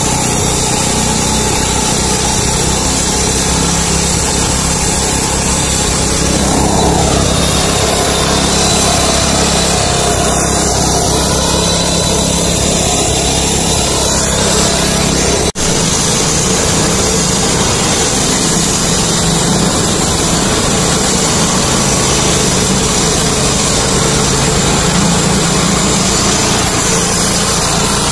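Walk-behind petrol concrete road saw running steadily, its blade cutting into the road pavement, with the sound dropping out for an instant about halfway through.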